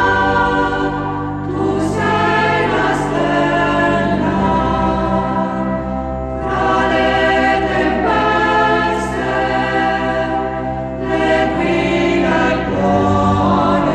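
Choir singing a slow hymn in long, held notes over a steady low drone.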